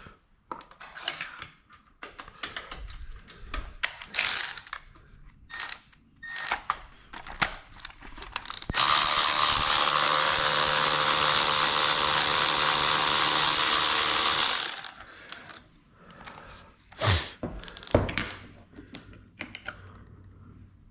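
Hand tools clicking and clanking as spark plugs are removed from a 3.6 Pentastar engine. About nine seconds in comes a loud, steady run of a power tool or air tool with a hum under it, lasting about six seconds and stopping sharply, followed by a few more knocks.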